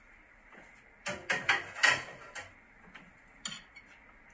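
Metal serving utensils clinking and scraping against a ceramic bowl of stir-fried mushrooms, in a quick cluster of clatters from about one to two and a half seconds in and one more clink near the end.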